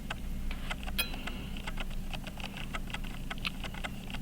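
Small, irregular clicks and taps of watchmaking tools on a Waltham pocket watch movement being taken apart for its broken mainspring, over a steady low hum.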